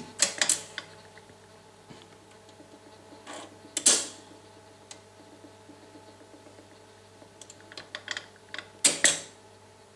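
Philips AG4116 record player's automatic tonearm mechanism cycling to stop: a series of mechanical clicks and clunks as the arm is lifted off the record and returned to its rest. A loud clunk comes about four seconds in and a cluster of clicks near the end, over a faint steady hum.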